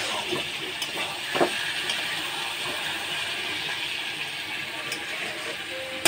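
Soybean chunks, potato and papaya sizzling in oil in a metal kadai while a spatula stirs and scrapes through them, with a sharper knock of the spatula about a second and a half in. The curry is being sautéed in its spice paste and is not yet fully browned.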